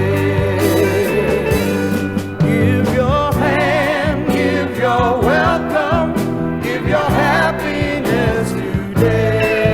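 Music: a song with a singing voice holding wavering notes over an instrumental accompaniment.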